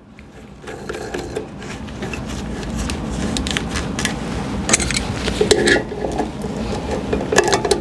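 Plastic toilet fill valve and its locknut being handled and threaded onto the valve's shank under the tank: continuous rubbing that grows louder about a second in, with scattered plastic clicks.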